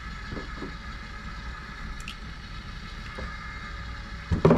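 A small ceramic cup knocked a few times in quick succession against the rim of an enamel pot near the end, over a steady low background hum.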